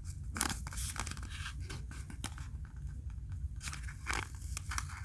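Cardboard packaging being scraped and rustled in short scratchy bursts as a triangular insert is worked out of a Zippo lighter box.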